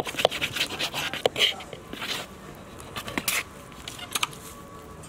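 A knife cutting through a bowl of risen pizza dough, its blade knocking and scraping against the side of the bowl in a few sharp clicks and short scrapes.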